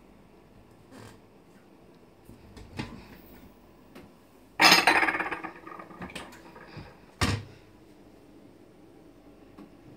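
A kitchen cupboard door clicks open, then ceramic and glass dishes clatter as a clear glass bowl is pulled from a shelf of stacked bowls. The loudest clatter comes about halfway through, and a single sharp clink follows about two seconds later.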